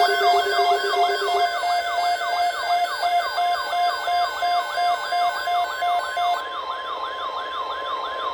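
Electronic emergency alert alarm: siren-like falling sweeps repeating about three times a second over a pulsing beep and a steady tone. Near the end the beeping stops and a steady alert tone is held.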